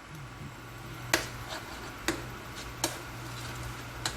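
Four sharp clicks, about a second apart, over a steady low hum: small taps at a pan of simmering sauce.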